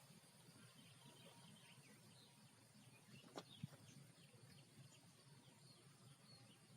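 Near-quiet outdoor ambience with faint small birds chirping again and again, and one short knock about three and a half seconds in.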